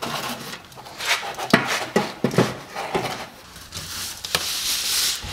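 Crinkling and rustling of a 6-inch aluminum flexible duct being bent and moved into place, with irregular knocks from handling the portable blower it is attached to. The crinkling is densest about four seconds in.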